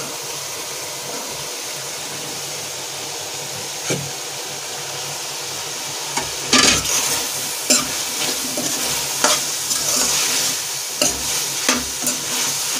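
Vegetables frying in a spiced tomato masala in a metal pot, with a steady sizzle. From about six seconds in, a steel spatula stirs them in repeated strokes, scraping and knocking against the pot.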